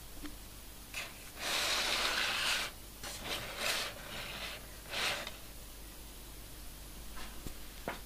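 Hands handling a metal Blu-ray steelbook case, fingers rubbing and sliding over it in a few scraping swishes, the longest about a second and a half in. A light click comes near the end.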